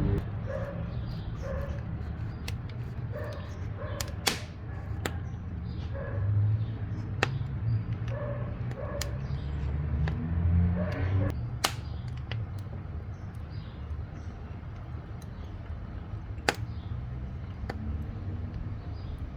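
Wood fire burning in a wood-burning stove: a steady low rumble broken by sharp, irregular crackles and pops, a few of them loud. Through the first half, an animal's short calls repeat in the background about once a second.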